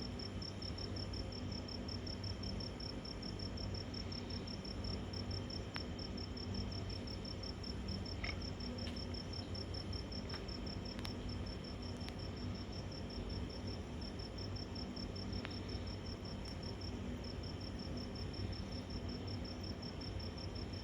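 Cricket chirping in a rapid, even, high-pitched pulse, pausing briefly a little past the middle, over a low steady hum.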